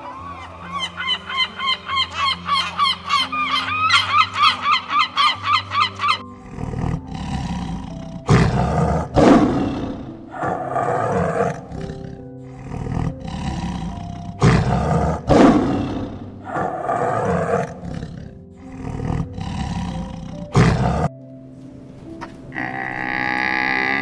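Tiger roaring and growling in a long series of rough bursts over background music. Before that come rapid goose-like honking calls, and near the end a short drawn-out animal bellow.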